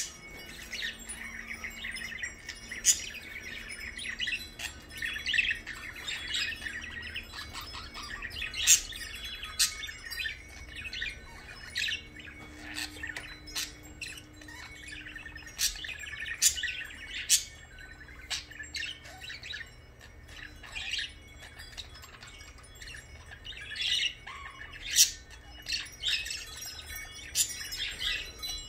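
Blue budgerigar chirping and chattering: a long run of short, sharp, irregular chirps and squeaks.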